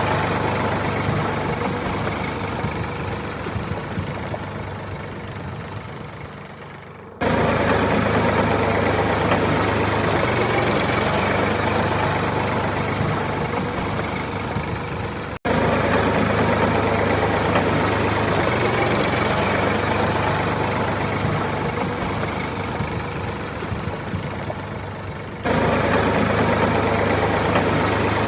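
Small engine idling steadily. The sound fades slowly and then jumps back to full level abruptly three times, where the recording is cut.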